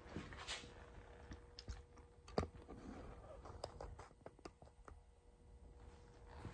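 Faint scattered clicks and taps of handling noise as a camera is set up and repositioned, with one sharper tick about two and a half seconds in, over a faint steady hum.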